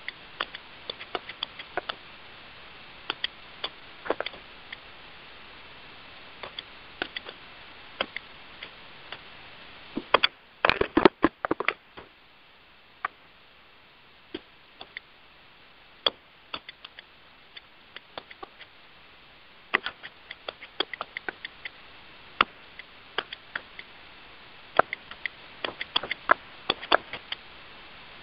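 Irregular clicks and taps on an open conference-call line, coming in scattered clusters over a low hiss, with a louder flurry of knocks about ten seconds in.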